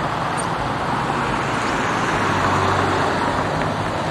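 Street traffic: a vehicle driving by, a steady rush of engine and tyre noise.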